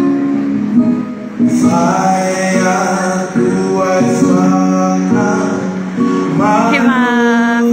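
A man singing into a microphone with guitar accompaniment, holding long sustained notes, with a wavering vocal run near the end.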